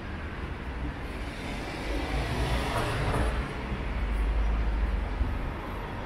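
A car passes close by on a city street, its engine and tyre noise building from about two seconds in and fading near the end, over a low, steady traffic rumble.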